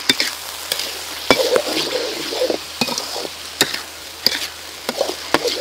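Metal ladle stirring and scraping a thick red sauce in a wok, with irregular clinks of metal on the pan over a steady sizzle from the hot sauce.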